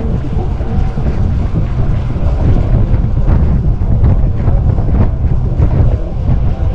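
Loud wind buffeting on the microphone of a camera carried along on a moving fixed-gear bicycle, heaviest in the low end and steady throughout.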